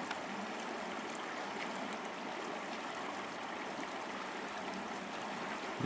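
Shallow river riffle rushing steadily over stones.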